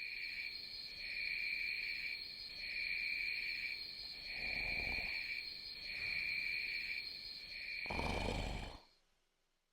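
Night-time cricket chirping, a steady high trill with a lower chirp pulsing about once a second, which cuts off suddenly near the end.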